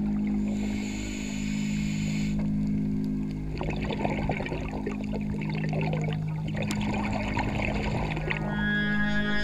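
Scuba diver breathing through a regulator underwater: a hiss of drawn-in air for about the first two seconds, then a few seconds of crackling, gurgling exhaled bubbles, over a steady low drone of ambient music.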